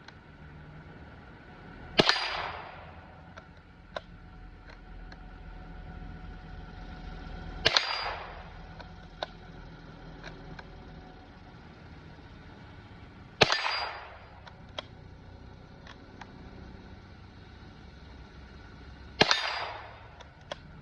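Four single shots from a Ruger Precision .22 LR bolt-action rifle, one about every six seconds, each with a short ringing tail. Fainter clicks come between the shots.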